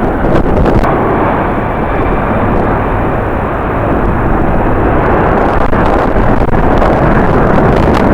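Steady roar of jet airliner engines, with a faint high whine early on, mixed with strong wind buffeting the microphone in gusts.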